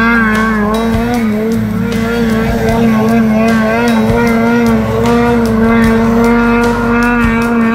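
Snowmobile engine held at high revs as the sled skims across open water, a steady high engine note that wavers slightly up and down in pitch.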